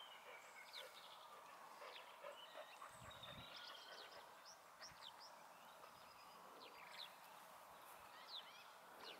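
Faint chatter of short, thin, high calls from a feeding flock of redwings and fieldfares, several calls a second and overlapping, over steady faint background noise.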